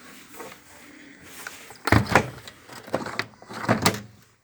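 A series of knocks and clicks from a washer dryer being handled, the loudest about two seconds in and a cluster more near four seconds.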